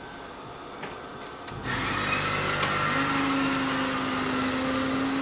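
Rhea KREA coffee vending machine making a cup of coffee. A short beep comes about a second in. The machine starts up with a loud, steady whir about a second and a half in, and a low steady hum joins about three seconds in.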